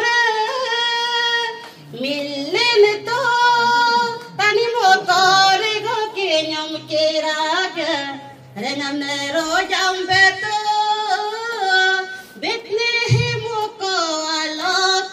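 A woman singing a gospel hymn solo into a microphone, in long held notes with a wavering pitch, with short breaths between phrases about two, eight and a half and twelve and a half seconds in.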